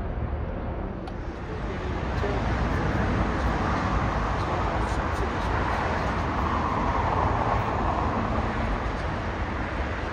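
Outdoor airport ambience: a steady rumble of jet aircraft and road traffic, with a broad swell of engine noise between about four and nine seconds in.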